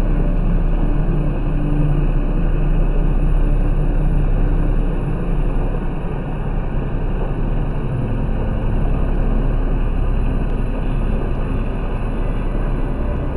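Steady low rumble of a heavy truck engine running during a concrete pour, with the wet concrete splattering onto the rebar and forms.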